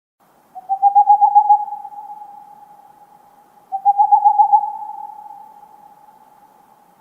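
Owl call sound effect: a rapid, quavering hoot on one steady pitch, heard twice, each burst lasting about a second and trailing off in a long echoing fade.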